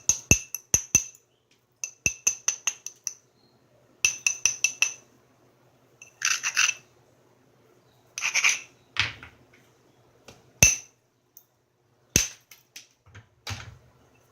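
Hammerstone tapping the edge of a stone core in quick runs of light, ringing clicks, about five a second, then a couple of longer scraping strokes and a few single, sharper knocks near the end: the small strikes and edge work of preparing striking platforms in flintknapping.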